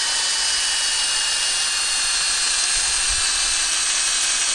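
Power drill with an auger bit running steadily while boring into frozen ground, a high motor whine that sags slightly in pitch under load.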